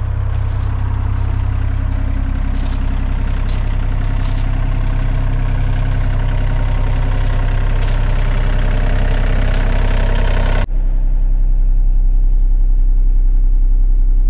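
Takeuchi TB235-2 mini excavator's diesel engine running steadily, with scattered short knocks and clanks over it. About ten seconds in the sound turns abruptly muffled, leaving a louder low hum.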